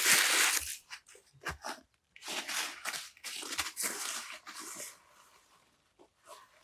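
Close handling noise: a rushing hiss fading out in the first second, then a run of short, irregular crinkling and rustling sounds for a few seconds as grilled food is pressed and arranged by hand on a wooden board.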